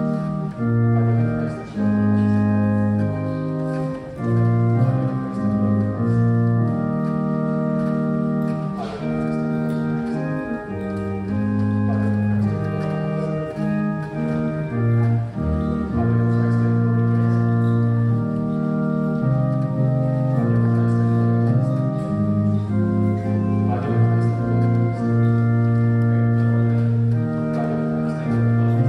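Organ playing slow, sustained chords, each chord held for a second or two before the next.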